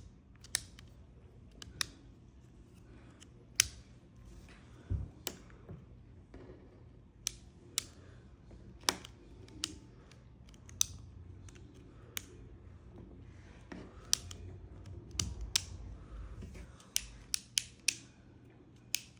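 Retractable stylus pen's click mechanism being clicked over and over: sharp plastic-and-metal clicks at uneven intervals, a few coming in quick runs near the end.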